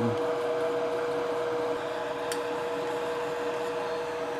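Steady whirring hum of a bench fume extractor fan, with two clear steady tones in it.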